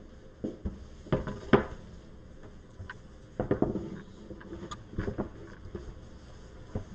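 A large triple-fold cardboard game board being handled and propped up against a cloth-covered surface: irregular knocks and thumps with rubbing and scraping, the loudest about a second and a half in.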